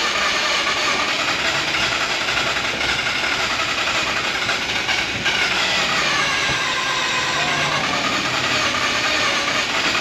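Starter motor cranking the Mazda RX-8's 1.3-litre rotary engine steadily, in clear-flood mode, without it firing. The engine is flooded and has low compression.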